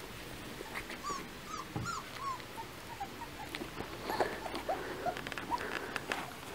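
Beauceron puppies whimpering: a run of short, high, rising-and-falling squeaks, thickest in the middle of the stretch, with a few soft clicks of movement close by.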